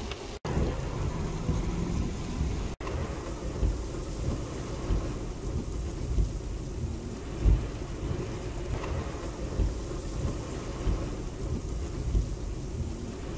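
Heavy rain pouring onto asphalt: a steady hiss of splashing drops, with irregular low rumbles and gusts underneath. The sound cuts out for an instant twice in the first three seconds.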